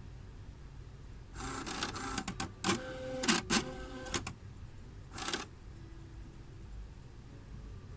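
Neopost CS200 franking machine's mechanism running for about three seconds with whirring and clicks, then once more briefly.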